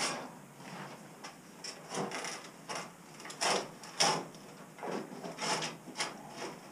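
Shovel scraping across the floor as rubble is scooped up, in repeated short scrapes about a second apart.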